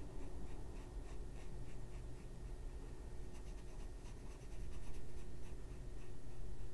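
Water brush bristles stroking over coloured pencil on paper: soft, short scratchy strokes about three or four a second, blending the watercolour pencil, over a low steady hum.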